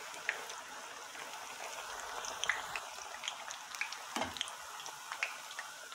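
Plantain slices deep-frying in hot oil: a steady sizzle with scattered small pops and crackles. One duller knock comes a little after four seconds in.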